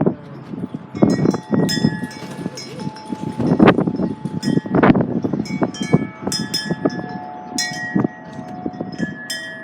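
Metal wind chimes ringing in irregular clusters as the wind blows them, with gusts of wind buffeting the microphone that are loudest a little before the middle.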